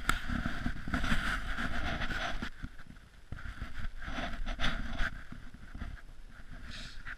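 Uneven crunching and rustling from someone moving in snow, with wind buffeting the microphone.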